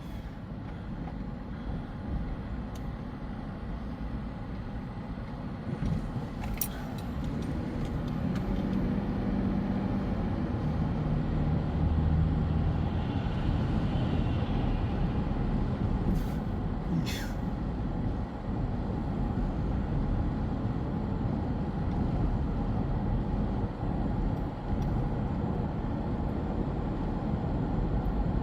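Car driving, heard from inside the cabin: steady engine and tyre road noise that grows louder about a third of the way in as the car picks up speed.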